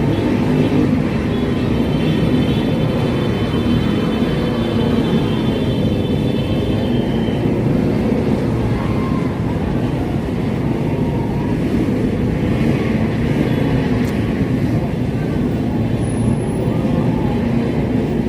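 Steady, loud street traffic: the continuous rumble of many vehicle engines running close by.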